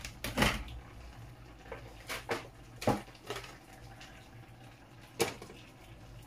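Several short plastic clicks and knocks as the clear plastic basket and lid of an electric food steamer are handled and fitted into place.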